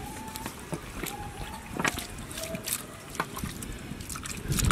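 Raw mutton legs being handled and pushed into a large aluminium pot, with wet meat sounds and scattered light knocks and clicks against the metal.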